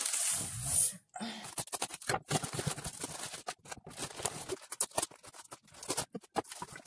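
A knife cutting and tearing the plastic wrapping and net bag off a whole chicken, making irregular crinkly rustles and scratchy clicks. It opens with a louder scraping noise that lasts about a second.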